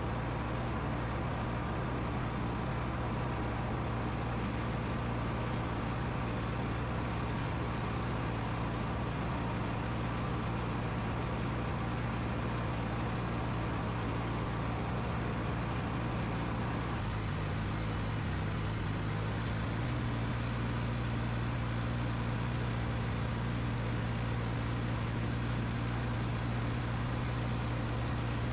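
Ford 1710 tractor's three-cylinder diesel engine running steadily under load while it pulls a grooming mower through grass. The engine note wavers briefly about two-thirds of the way through, then settles back to an even hum.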